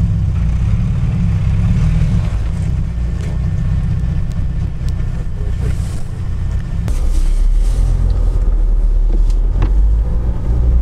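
UAZ Patriot SUV's engine running hard as it pushes through slippery clay mud. About seven seconds in the sound changes to a louder, steadier low rumble of a car driving over a muddy field, heard from inside the cab.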